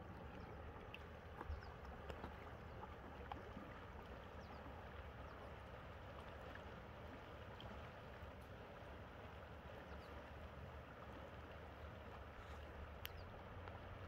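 Shallow river flowing past shoreline rocks: a soft, steady rush of water with a few faint ticks.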